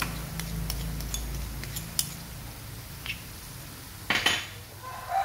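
Light clinks of a spoon and small bowl against each other and the wok while seasonings go in, with a louder clatter about four seconds in.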